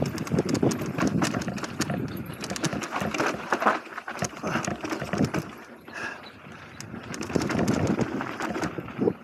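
Mountain bike descending a dirt bike-park trail: the bike rattles and clatters over bumps and the tyres run on loose dirt and gravel. It goes quieter for a few seconds in the middle, then the rattling builds again.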